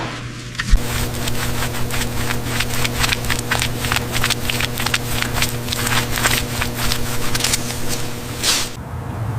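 A steady machine hum starts just under a second in, with a rapid, irregular run of short hissing strokes over it, and stops near the end.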